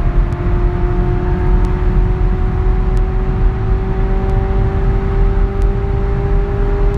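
2018 Mazda 6's 2.5-litre naturally aspirated four-cylinder pulling hard in one gear during a flat-out acceleration run. Its note rises slowly and steadily, heard from inside the cabin over heavy road and wind rumble.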